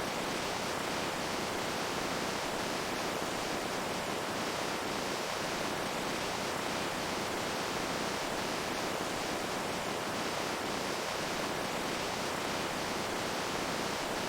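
Steady rushing water, an even, unbroken hiss of flowing water with faint small splashes in it.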